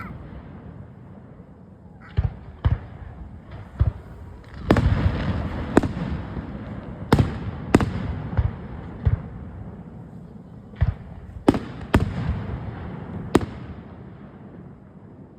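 Aerial fireworks bursting: about a dozen sharp bangs at uneven intervals, each trailing off in an echo. A spell of crackle follows a burst about five seconds in.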